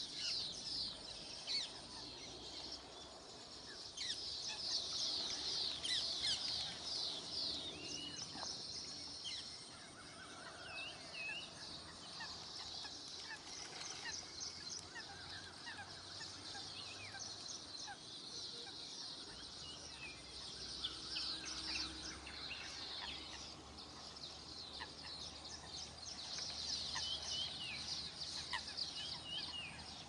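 A flock of coots calling at once: a dense, continuous chatter of many short, high calls, busiest around four to seven seconds in and again near the end.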